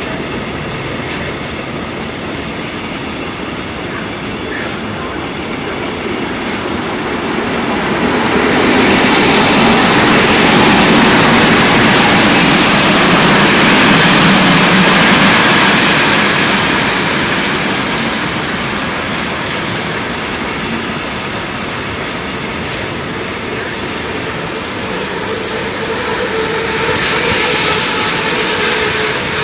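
Long freight train of container and tank-container flat wagons rolling past with a continuous rumble of wheels on rails, swelling louder for several seconds in the middle. A few faint high wheel squeals come in the later part.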